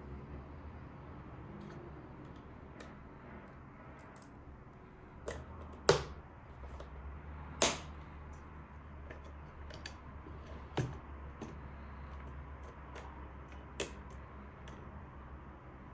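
Scattered clicks and knocks from small hard parts being handled, the two loudest about six and seven and a half seconds in, over a steady low hum.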